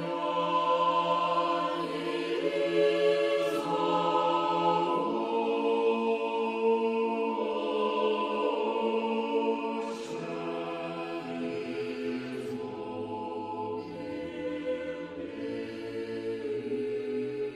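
Choir singing a slow chant in harmony, long held chords that shift to new notes every few seconds.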